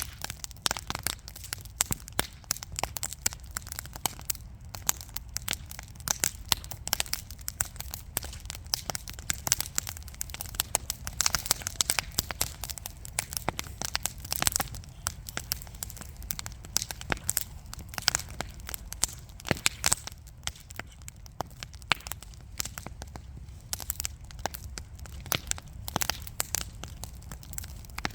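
Real wood burning in a fireplace, crackling with many irregular sharp pops and snaps over a steady low rumble.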